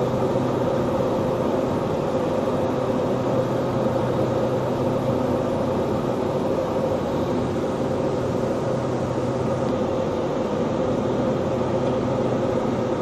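Steady drone of a passenger plane's engines and airflow heard inside the cabin in cruise flight, a constant hum with a few steady held tones and no change in level.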